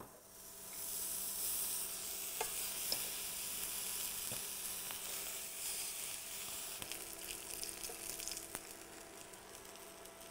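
Escalopes of duck foie gras sizzling as they sear in a hot frying pan. The hiss starts about half a second in as the slices go into the pan, holds steady and eases slightly toward the end, with a few light clicks.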